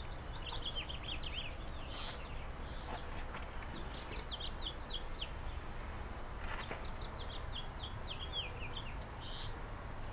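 Small birds chirping in quick bursts of short, sharply falling notes, in three clusters, over a steady low rumble.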